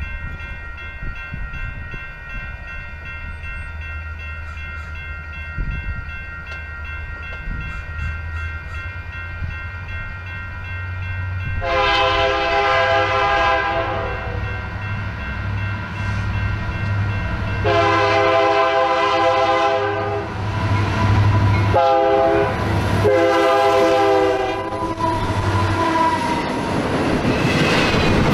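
Diesel locomotive running with a low rumble, then sounding its multi-note air horn four times in the long, long, short, long grade-crossing pattern. Near the end a rising rush of passing train noise builds.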